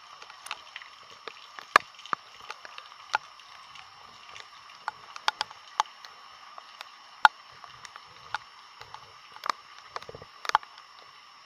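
Footsteps wading through shallow floodwater, sloshing, over a steady high hiss with scattered sharp taps throughout.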